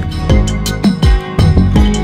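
Instrumental background music: held chords over a regular beat of low drum hits.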